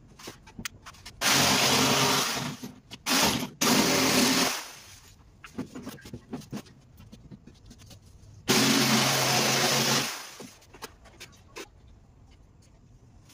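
Handheld electric power tool run three times on a sheet of plywood: a burst about a second in, a shorter one around three and a half seconds, and a longer one near nine seconds that winds down. Light knocks and handling clicks in the pauses.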